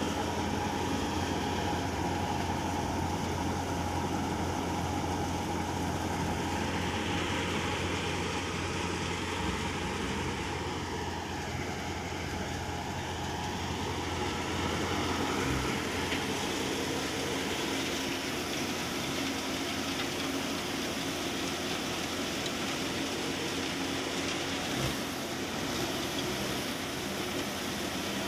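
Massey Ferguson 240 tractor's three-cylinder diesel running steadily under load, driving a belt-powered thresher that is threshing sesame plants. It makes one continuous mechanical drone that hardly changes.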